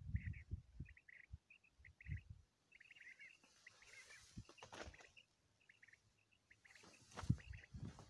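Small birds chirping in short, quick repeated calls, faint, with footsteps thudding and crunching on dry stony ground near the start and again about seven seconds in.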